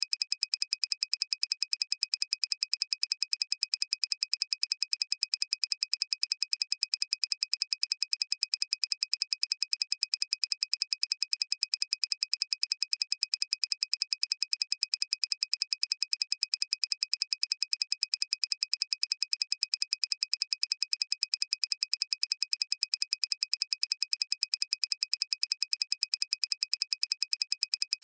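Rapid, evenly spaced high-pitched electronic ticks, a synthesized sound effect repeating in a steady stream, one tick for each ball dropping in the animation.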